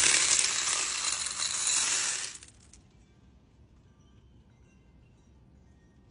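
A bowlful of small pink tumbled crystal stones poured into a plastic bin of tumbled stones, a dense clatter of stones clinking on stones that stops about two and a half seconds in.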